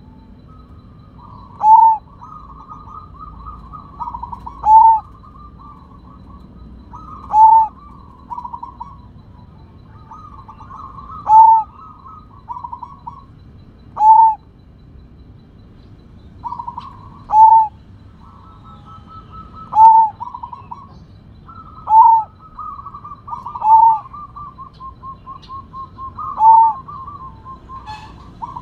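Sumbawa zebra dove (perkutut) cooing: a loud, short, falling note about every two to three seconds, ten in all, with quieter rolling, trilled coos between them.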